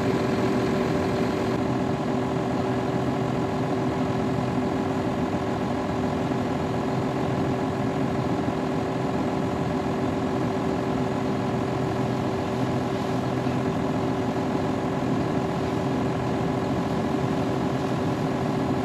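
A vehicle engine running steadily at an even speed, with no change in pitch.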